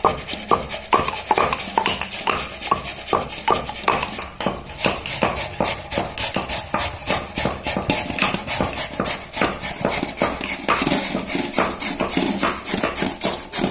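Stone pestle pounding cardamom pods in a stone mortar, quick regular knocks for about the first four seconds. Then beetroot rubbed hard on a steel box grater in fast, even rasping strokes.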